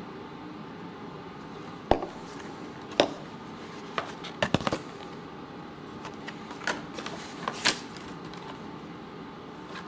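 Clear plastic clamshell packaging and a foil wrapper being handled while a mobile hotspot is unpacked: scattered sharp plastic clicks and clacks, with a quick cluster about halfway through.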